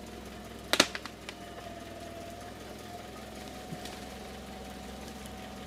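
UAZ off-roader's engine idling steadily, with one sharp knock a little under a second in and a couple of lighter clicks just after.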